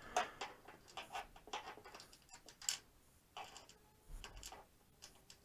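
Irregular light clicks and taps of small metal parts: screws and a screwdriver being handled and knocked against the inside of a computer case.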